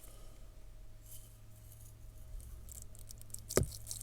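Glitter being shaken out of a small container, a faint light rattle, with one sharp click near the end.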